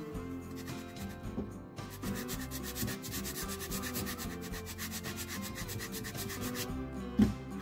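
Sanding block rubbed back and forth by hand along the edges of knife handle scales, trimming them flush with the original scales. A single knock near the end.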